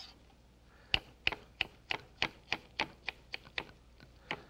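Kitchen knife dicing tomato on a wooden cutting board: sharp taps of the blade hitting the board, about three a second, starting about a second in.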